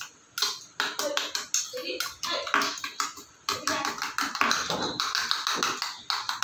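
A metal spoon beating eggs in a small stainless steel bowl, clinking rapidly and irregularly against the bowl's sides.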